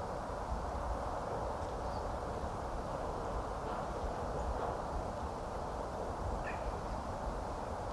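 Riverbank ambience: a steady rushing hiss over a low rumble, with a few faint short bird calls, the clearest about six and a half seconds in.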